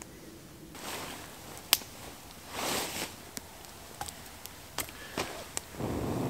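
Rustling and handling with a few sharp snaps or clicks, the loudest about two seconds in; near the end a steady hiss of rain comes in.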